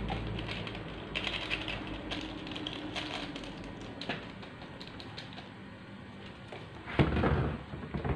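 Crinkling and tearing of small plastic seasoning sachets and paper-foil instant-noodle cup lids being opened, in irregular crackles and clicks, with a louder rustle near the end.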